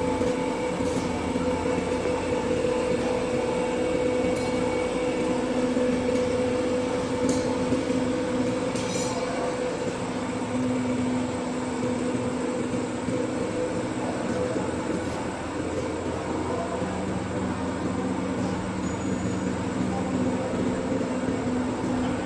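Steady mechanical hum of running machinery, with a few light clicks about seven and nine seconds in.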